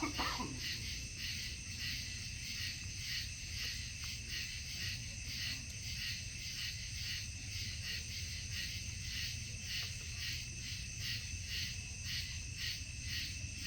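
Night insect chorus pulsing steadily at about two to three pulses a second, over a steady low rumble, with a brief louder sound right at the start.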